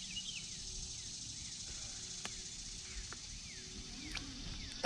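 A bird calling over and over with short, high, downward-slurred chirps, about two a second, over a low steady rumble. One sharp click about two seconds in.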